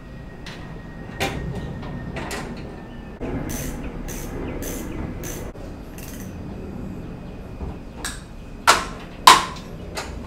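Scattered clicks and knocks of a hand screwdriver and plastic bracket parts being handled while a screw is fitted, with two sharp knocks near the end the loudest.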